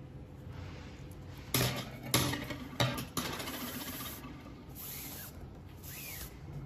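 Hands handling a braided rope, clear plastic tubing and a wire clip: a few sharp knocks in the first half, then bursts of scraping and rustling.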